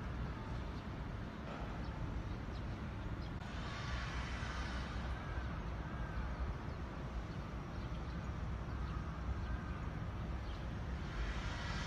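Outdoor city ambience: a steady low rumble with a light hiss that swells twice, and faint bird calls about four to six seconds in.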